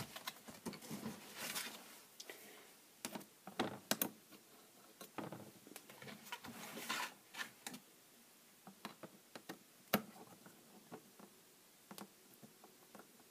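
Light scattered clicks, clinks and knocks of small hand tools being rummaged through and handled, busier in the first half and sparser later on.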